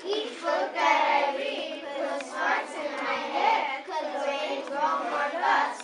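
A class of young children singing a song together in unison, many voices at once.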